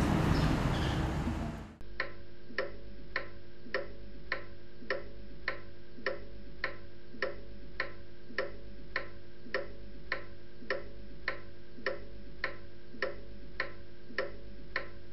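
Outdoor street noise for the first couple of seconds, then after a sudden cut a clock ticking steadily, a little under two ticks a second, over a faint room hum.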